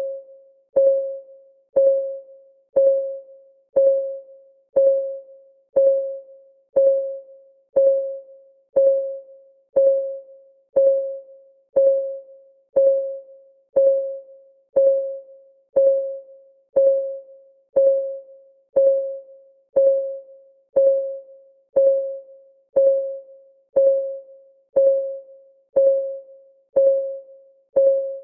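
Countdown timer's clock-ticking sound effect: a steady tick about once a second, each tick a short pitched tone that dies away quickly.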